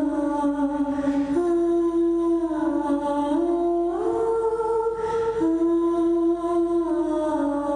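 Wordless humming of a slow melody: long held notes moving up and down by steps, with a short rising glide about four seconds in.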